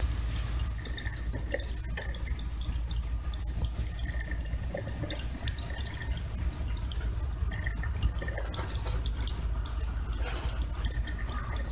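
Small water drips and light trickling in a pond, scattered irregularly over a steady low hum.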